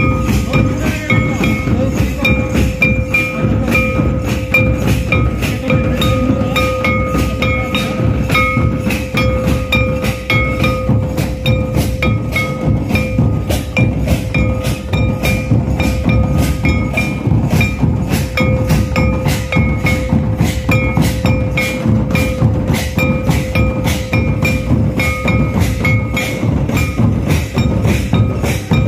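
Santal folk dance music: drums beating a fast, even rhythm of a little over two strokes a second, over a steady held tone and short repeated higher notes.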